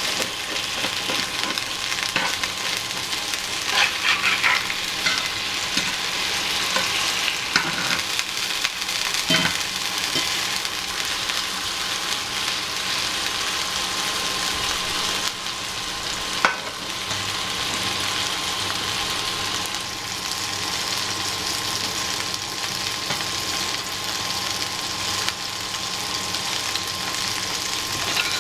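Chicken thighs sizzling and spitting in hot cooking fat in a frying pan, a steady sizzle with a few louder sharp clicks scattered through it.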